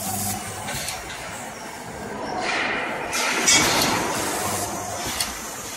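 Platform-table spot welding machine making a series of spot welds on sheet metal with a handheld electrode: each weld is a short hissing crackle of spatter over a low electrical buzz. The loudest comes about three and a half seconds in, and a short sharp one follows near the end.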